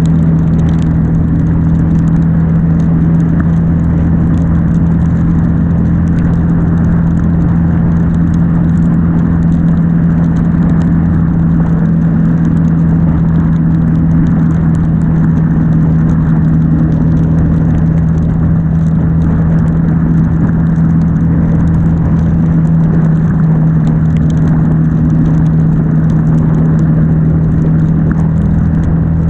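Ducati Monster S2R's air-cooled L-twin engine running at a steady cruising speed, with a constant deep note, muffled and with little treble.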